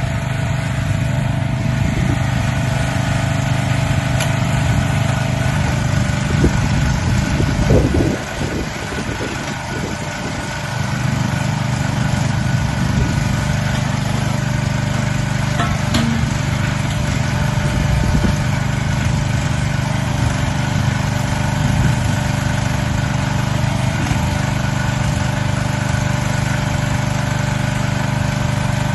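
An engine running steadily at a constant speed. About eight seconds in it is briefly disturbed and drops, then settles back to the same steady note a few seconds later.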